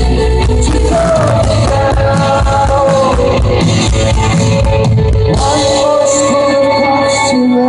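A rock band playing live, with a singer holding long sung notes over guitars, bass and drums, loud and steady throughout.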